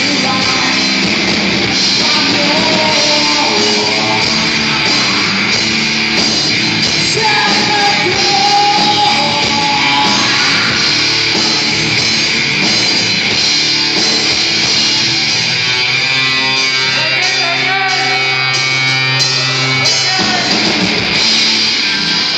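Live rock band playing with a singer, loud and dense throughout, with long held notes in the last few seconds before the music stops.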